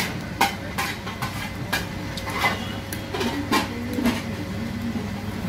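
Sharp metal clinks and taps of a steel spatula against a flat iron griddle (tawa) where an egg paratha is frying, about eight at irregular intervals, over a steady low hum.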